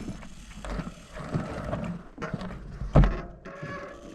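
Someone crossing a broken, slanted wooden boardwalk: footsteps and creaking planks, with a heavy thud about three seconds in.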